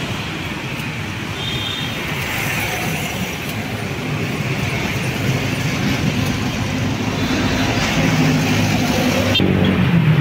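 Steady street traffic noise with vehicle engines running.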